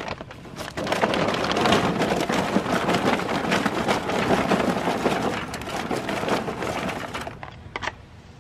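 Charcoal briquettes pouring out of a paper bag and clattering onto the wire grate and the pile in a charcoal grill: a dense, irregular rattle of many small knocks that starts about a second in, runs for about six seconds and tails off, with a couple of sharp clicks near the end.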